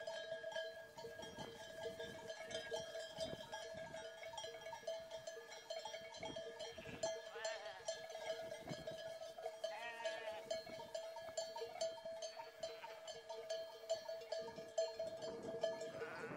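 Bells on grazing livestock ringing and clanking, with a couple of quavering bleats about halfway through.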